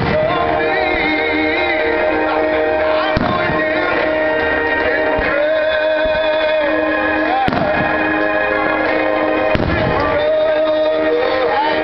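Music with singing plays throughout at a steady level, and aerial fireworks shells burst through it several times, near the start and about three, seven and a half and nine and a half seconds in.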